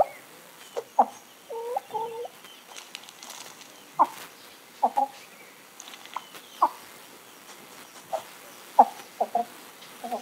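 Chicken clucking: a series of short, sharp clucks, some in quick pairs, spaced irregularly.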